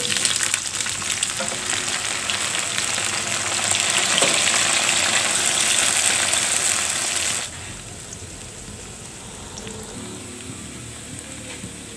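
Tempe strips frying in hot oil in a wok: a loud, steady sizzle that drops abruptly to a quieter sizzle about seven and a half seconds in.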